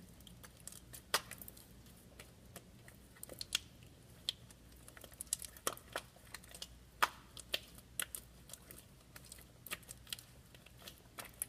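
Homemade borax slime being squished and stretched by hand, making irregular small sticky clicks and squelches.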